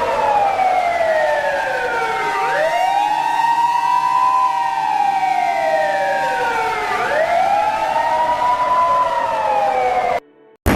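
A wailing siren slowly falls in pitch, then sweeps back up, about once every four to five seconds. It cuts off abruptly just before the end.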